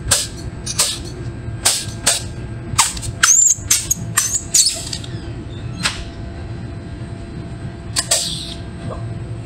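Pneumatic rivet gun setting rivets: about a dozen sharp snaps, most of them in the first five seconds, then one near six seconds and a pair near eight seconds.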